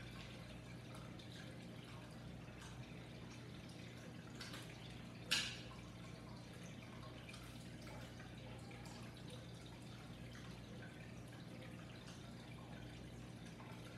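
Faint close-up eating sounds of a person chewing, with soft mouth clicks and smacks and one sharp, louder click about five seconds in, over a steady low hum.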